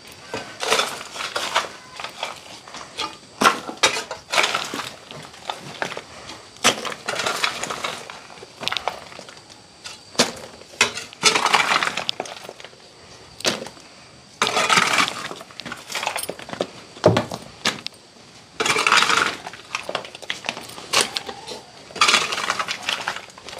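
Irregular scraping strokes and the clatter of loose stones and grit being swept or scraped across a floor, with many sharp clinks and knocks between the strokes.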